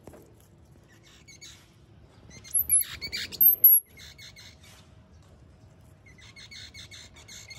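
Young striped squirrels chirping: a few sharp, very high squeaks around the middle, then rapid trains of short chipping calls, about ten a second.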